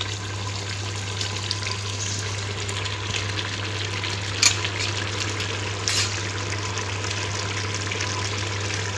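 Chicken curry simmering and sizzling in an open aluminium pressure-cooker pot on a gas stove, a steady hiss, with two short clicks about four and a half and six seconds in.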